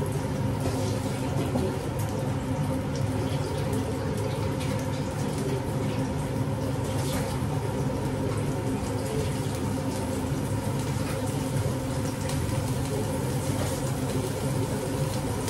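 Kitchen chimney (range hood) fan running with a steady hum, over the hiss of fish frying in olive oil in a pan, with light crackles now and then.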